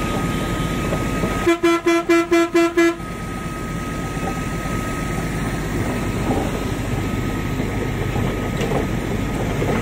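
A vehicle horn gives about seven quick toots in a row, starting about a second and a half in, over the steady drone of a Bharat Benz 4023 truck's six-cylinder diesel and road noise heard from inside the cab. The engine is running evenly, all six cylinders firing after a cleaned injector nozzle was refitted.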